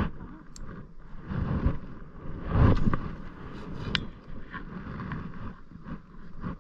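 Wind buffeting the microphone and choppy water slapping against a small boat's hull, in uneven swells, with a few light clicks.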